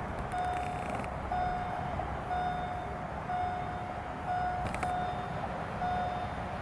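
Electronic railway warning signal sounding a steady beep at one constant pitch, about once a second, over a low rumble.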